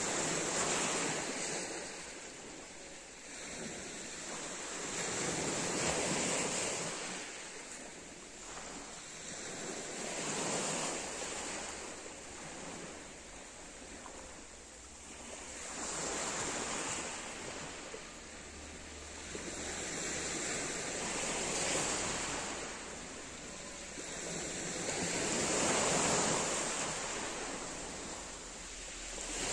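Small waves breaking on a pebble beach, the surf swelling and fading about every five seconds.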